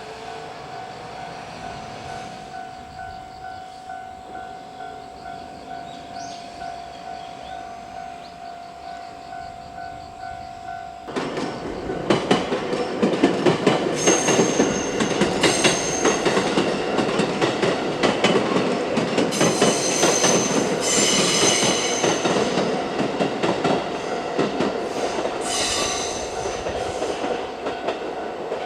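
A Japanese level-crossing warning bell rings in a steady pulsing rhythm. About eleven seconds in, a 223-series six-car electric train arrives and passes, its wheels clattering over the rail joints, with a few brief high-pitched tones over the rumble. The crossing bell keeps ringing underneath.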